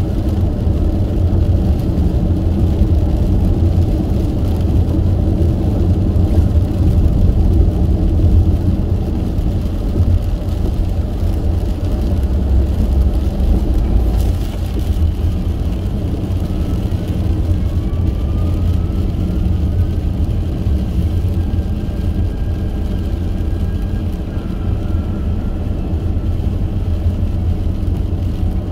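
Steady road and wind noise inside a car driving at freeway speed in rain and strong wind: a loud low rumble of tyres and wind buffeting. A faint rising whine appears past the middle and then holds.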